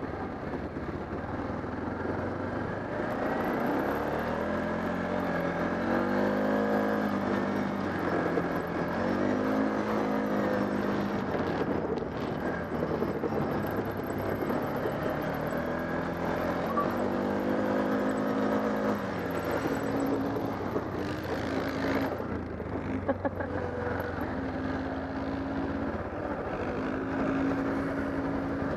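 Off-road vehicle engine running across rough ground, its note rising and falling in several long swells as the throttle opens and eases off, then holding steadier near the end.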